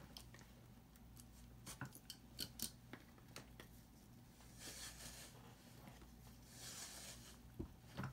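Faint sounds of leather lacing being pulled through the punched holes of an elephant-skin wallet: small clicks and ticks from the needle and lace, then two longer rasping swishes as the lace is drawn through, with a soft knock or two near the end.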